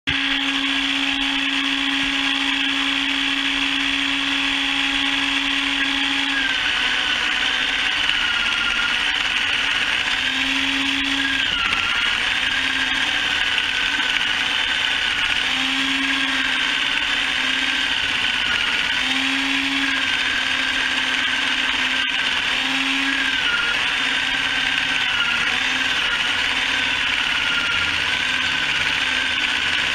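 Motor-driven chicken plucker running steadily with a high whine. From about six seconds in, its pitch wavers and dips again and again.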